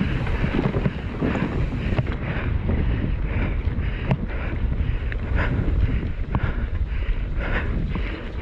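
Wind buffeting the microphone of a camera riding on a mountain bike descending a dirt trail at speed, over the rumble of knobby tyres on dirt, with occasional sharp clicks and rattles from the bike.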